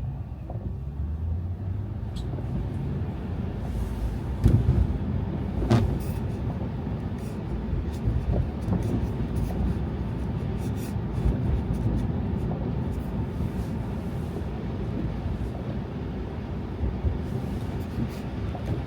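A car driving on snowy city streets: steady low road and tyre rumble, with two brief thumps about four and a half and six seconds in.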